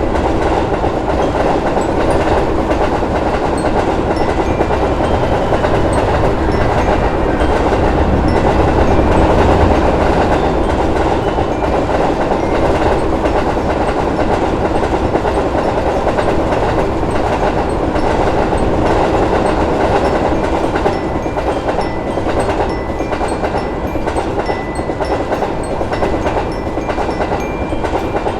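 A train passing over a level crossing, its wheels clattering on the rails in a steady, continuous run that swells slightly about nine seconds in.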